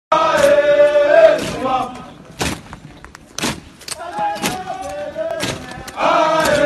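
A column of marching cadets chanting a marching song in unison, with held sung notes at the start and end and their boots stamping down about once a second.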